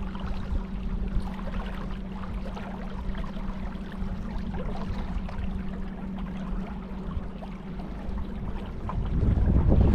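Boat motor running with a steady hum over water noise. Near the end the hum drops out and wind buffets the microphone.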